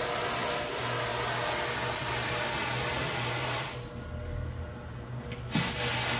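Rotary floor machine with a scrubbing brush running over a wet, soapy area rug: a steady motor hum under a loud scrubbing hiss. About two-thirds in, the hiss drops away for nearly two seconds, then returns with a short thump.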